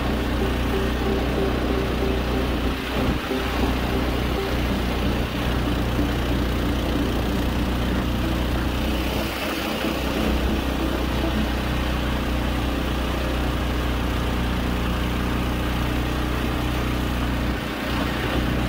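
Mudskipper long-tail mud motor, a 420cc single-cylinder Honda-clone engine, running steadily as it pushes the jon boat along.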